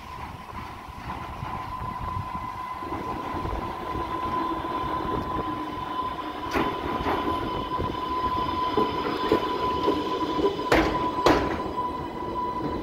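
Island Line Class 484 third-rail electric train running slowly in along the pier, its steady whine growing louder as it approaches. Pairs of sharp clacks from the wheels crossing rail joints come about halfway through and again near the end.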